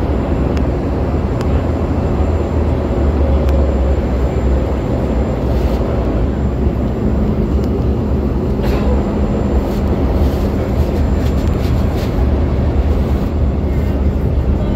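Airliner cabin noise during descent: a steady, loud, low drone of the jet engines and air rushing past the fuselage, heard from inside the cabin.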